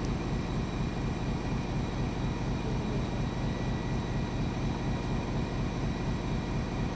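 Steady machinery drone in a diesel power plant's engine hall: a constant low hum with a few faint steady high tones over it, unchanging throughout.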